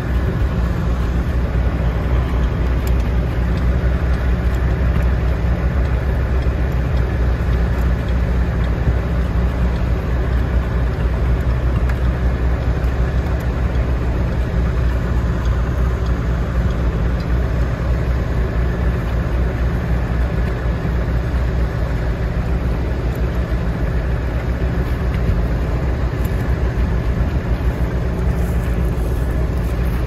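Vintage tractor engine idling steadily close by, with an even low, fast throb.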